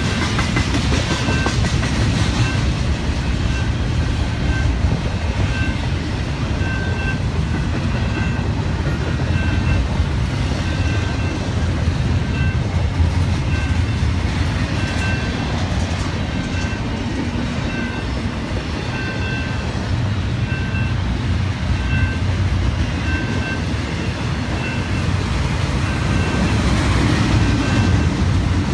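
Double-stack intermodal freight train rolling steadily past a level crossing: a continuous low rumble of railcar wheels on the rails. Through it the crossing's warning bell dings evenly, a little over a second apart.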